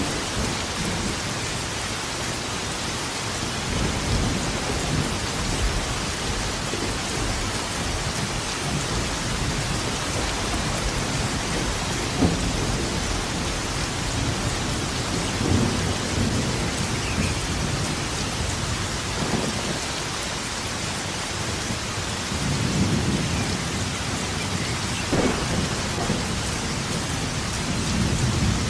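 Steady heavy rain with thunder rumbling again and again, including a couple of sharper cracks, one near the middle and one near the end.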